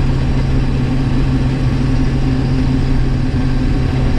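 Combine harvester's engine and threshing machinery running in a steady, even drone, heard from inside the cab while harvesting oats.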